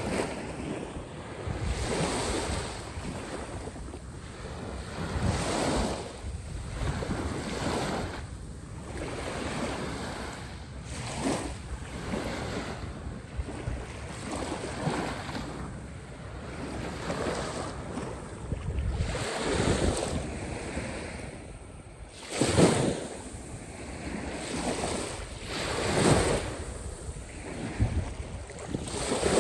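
Caspian Sea waves breaking and washing in, one surge after another every two to three seconds, the loudest about two-thirds of the way through, with wind buffeting the microphone.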